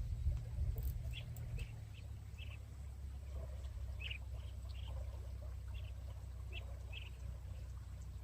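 Short high chirps from a small animal, one or two a second at irregular intervals, over a low steady rumble.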